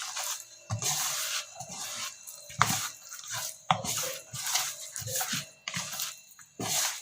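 Hands mixing fish pieces with spice paste and masala powder in a bowl: irregular wet squishing and rubbing, with a few sharp clicks.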